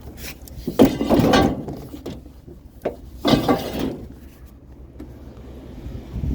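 Two loud bouts of clattering, about a second in and again past three seconds, with a few sharp knocks between, as curbside junk is handled and loaded, over a steady low vehicle hum.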